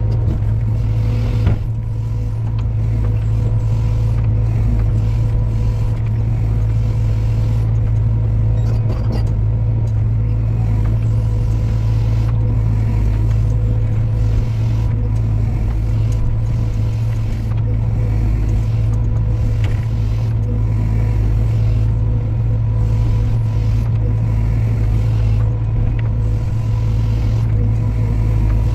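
Diesel engine of heavy machinery running steadily with an even, deep hum. There is a single sharp knock about a second and a half in.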